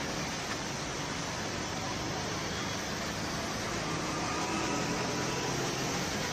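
Steady hiss of heavy rain falling, with faint hum of passing traffic under it.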